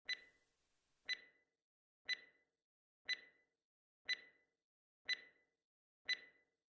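Countdown timer ticking: short, sharp ticks with a brief high ring, evenly one per second.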